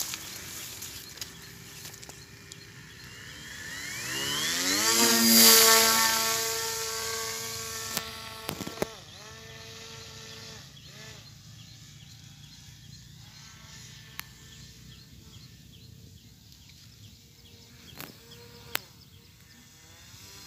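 Foam RC airplane's brushless electric motor and propeller whining, rising in pitch as it speeds up and loudest about five seconds in. It holds a steady drone, drops in pitch briefly about nine seconds in, then carries on faint as the plane flies off.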